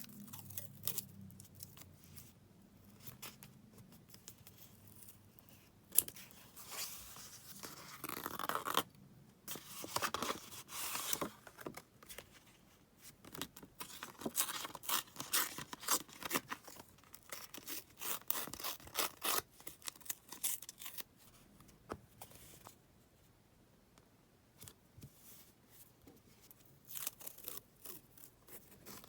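Paper being handled for diary scrapbooking, in irregular bursts of crisp rustling, tearing and snipping. There is a sharp click about six seconds in.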